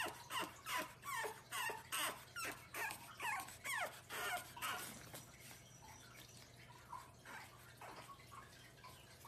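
Pug puppy whimpering in short, high yips, about two or three a second, each one falling in pitch; the yips fade away about five seconds in.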